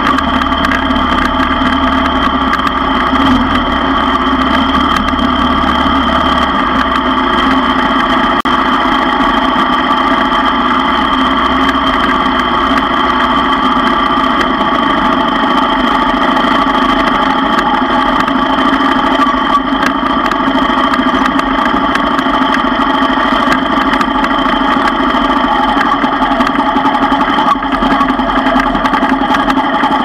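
ATV engine running at a steady, low-speed pace on a rough dirt trail, loud and even with hardly any change in pitch.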